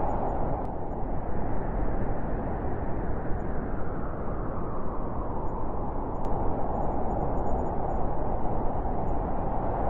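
Winter wind blowing steadily, a low rushing noise that eases off after the first second and swells again near the end.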